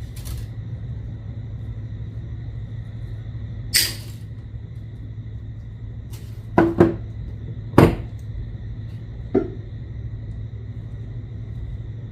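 A handful of short sharp clicks and taps from pliers and orthodontic wire being handled, as a length of 21 gauge wire is straightened; a close pair about two thirds of the way in and the loudest just after. A steady low hum runs underneath.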